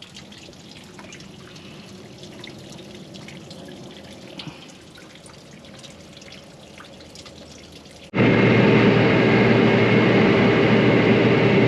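Water dripping and trickling faintly off a freshly washed cotton picker radiator. About 8 s in it cuts abruptly to a vehicle's engine running steadily and loud, with a drone.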